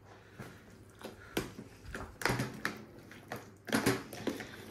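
Metal spoon stirring chickpeas in yogurt in a plastic tub: irregular scrapes and knocks of the spoon against the tub with wet mixing.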